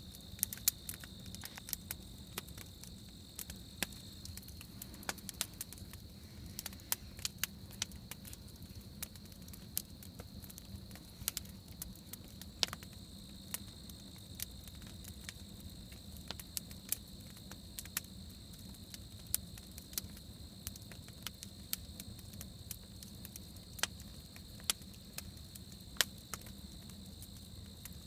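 Campfire crackling, with sharp irregular pops from the burning wood, over a steady high chirring of crickets.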